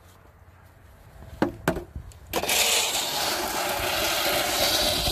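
Two short knocks, then, from about halfway, a snow shovel's blade scraping steadily along asphalt as it pushes a thin layer of snow.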